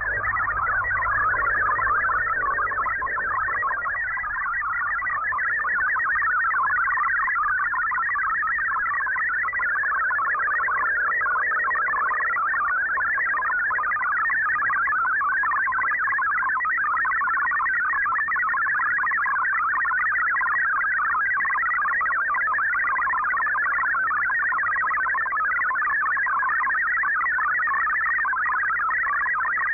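Two MFSK32 digital text signals sent side by side on a shortwave broadcast and heard through the receiver: a steady, fast warble of shifting tones packed between about 1 and 2 kHz, over faint hiss and hum. It is data being decoded as text.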